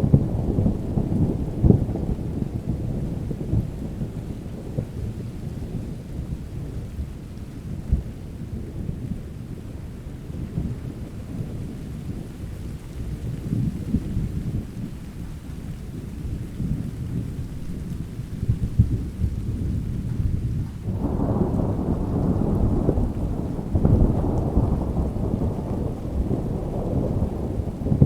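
Thunderstorm: low, rolling thunder rumbling continuously over steady rain, easing off in the middle and swelling up again about three quarters of the way through.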